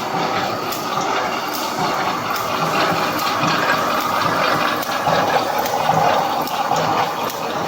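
Wire mesh welding machine running: a steady mechanical din with a sharp click repeating about every 0.8 s.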